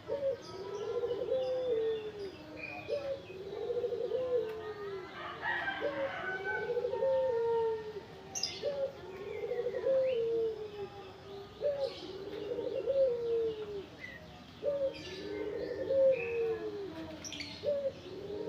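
Tame puter turtle dove cooing over and over: a short note, then a longer rolling coo, about every two seconds. Small birds chirp faintly in the background.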